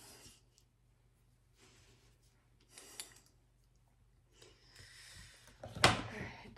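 Soft rustling of hands patting serum onto skin and of a terrycloth robe, with a faint click about three seconds in, then a single sharp knock near the end.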